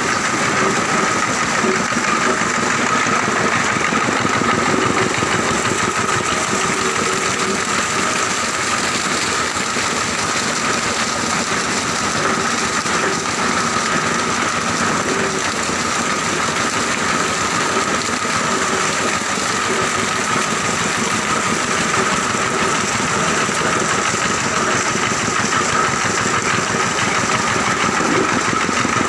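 Plastic-recycling grinder and washer running steadily, belt-driven by a small stationary engine, with a constant whine over the machine noise.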